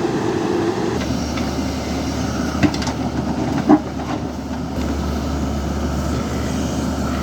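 JCB backhoe loader's diesel engine running steadily while it works, with two sharp knocks about a second apart partway through.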